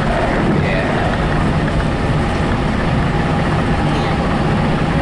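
Steady running rumble of a passenger train in motion, heard from inside the coach.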